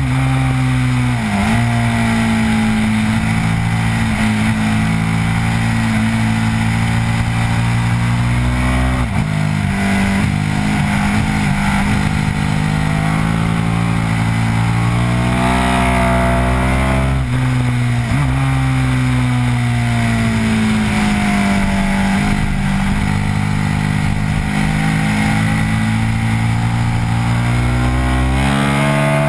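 KTM RC8R sport bike's V-twin engine pulling hard, heard onboard with strong wind rush over the microphone. The engine note climbs and dips sharply at gear changes, drops away about nine seconds in as the bike slows for a corner, then climbs again.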